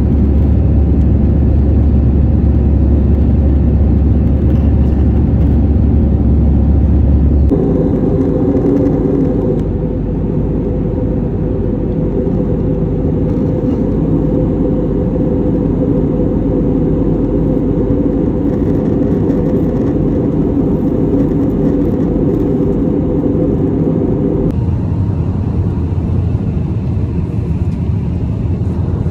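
Steady cabin noise of an Airbus A320-family airliner in flight, the jet engines and airflow heard from a window seat. The tone of the drone changes abruptly twice, about a third of the way in and again near the end.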